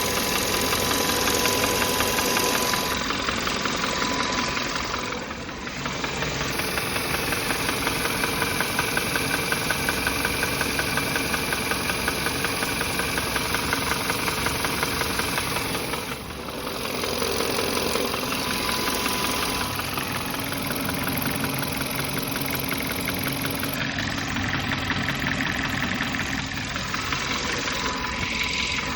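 Engine running with a fast, steady knock, the knocking noise the recording is about. The sound dips briefly twice.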